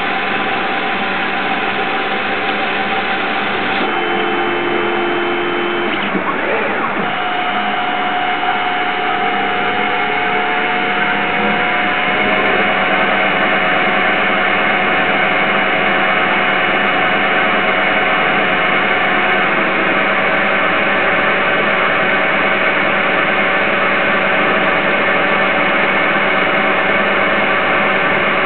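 CNC-converted Myford Super 7 lathe running as it turns a spindle nose blank: a steady machine whine made of several held tones. The tones shift and glide in pitch between about four and twelve seconds in, then hold steady.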